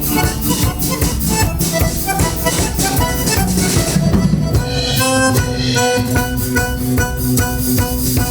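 Live band playing an instrumental passage with a steady drum beat; from about five seconds in, long held melody notes stand out.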